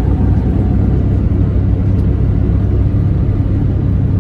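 Steady low engine and road rumble heard from inside a moving vehicle.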